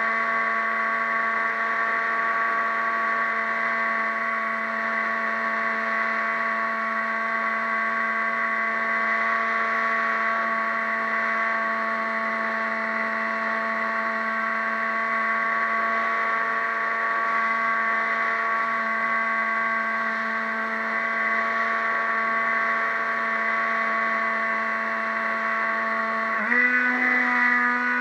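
Model boat's motor running with a steady, even whine, its pitch jumping suddenly higher near the end as the throttle opens.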